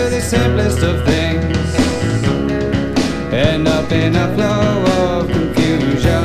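Rock band playing a song, with electric and acoustic guitars over a steady low bass.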